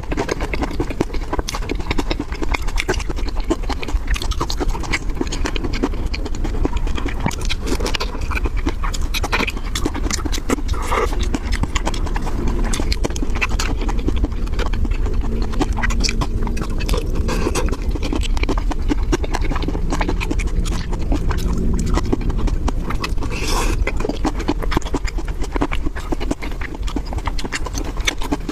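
Close-miked eating sounds: a person chewing and smacking on seafood, a dense, continuous run of wet clicks and crunches.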